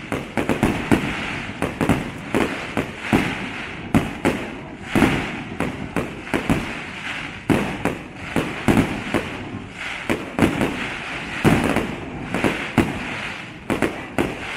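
Fireworks display: an irregular run of sharp bangs from aerial shells bursting, often several a second, over a continuous hiss.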